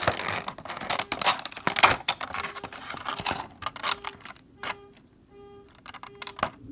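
Clear plastic sleeve and plastic tray of a diecast model airliner's packaging crinkling and rustling, with sharp clicks, as the model is worked out of its wrapping; this is busiest in the first half. Later a faint short tone repeats in the background.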